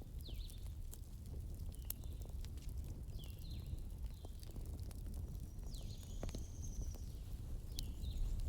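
Campfire crackling, with sharp pops over a low steady rumble of the flames. Short chirping calls repeat every second or so, and one longer high call comes about six seconds in.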